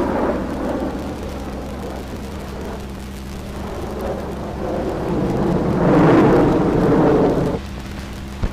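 Jet aircraft engine roar laid over archival film footage. It swells to its loudest around six seconds in and cuts off suddenly about seven and a half seconds in, with a steady low hum underneath.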